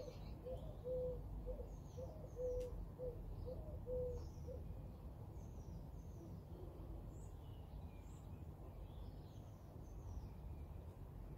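Garden birdsong: a pigeon cooing in a series of short and drawn-out low notes that stops about four seconds in, with small birds chirping throughout over a faint, steady low rumble of background noise.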